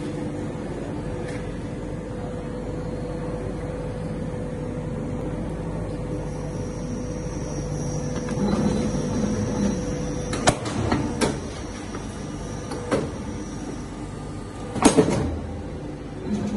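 Hydraulic wire bending machine running with a steady hum from its power pack, with a faint high whine through the middle. From about ten seconds in, several sharp metallic clunks as the hydraulic tooling moves, the loudest near the end.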